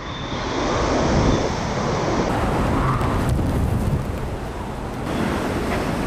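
Typhoon wind blowing in gusts with heavy driving rain, buffeting the microphone; it eases briefly about four seconds in, then surges again.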